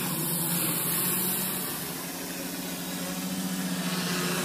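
FPV quadcopter's electric motors and propellers buzzing in flight with a steady pitch over a hiss, easing slightly about two seconds in and then picking up again.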